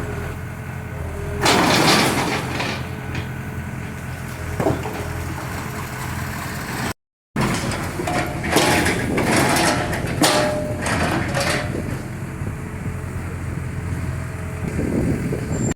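Heavy construction machine's diesel engine running steadily while it demolishes a structure, with bursts of crashing, breaking debris about a second and a half in and again for several seconds from about eight seconds. The sound cuts out briefly near seven seconds.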